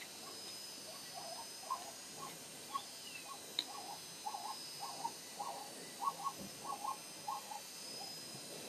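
A series of short animal calls, about two to three a second, that stop near the end, over a steady insect chorus.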